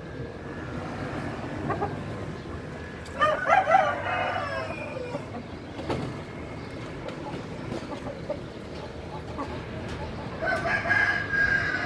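Caged rooster crowing: one long crow about three seconds in, trailing off at the end, and another long call near the end.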